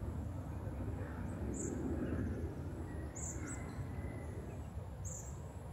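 Outdoor ambience of steady low background noise, with short high bird chirps heard three times, about a second and a half apart.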